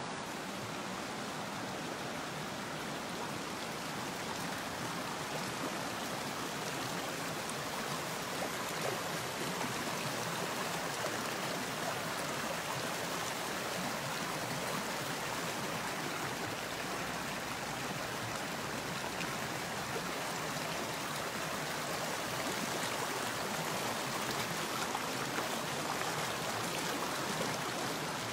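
Shallow muddy brown water rushing over rocks and gravel, a steady, even rush of running water.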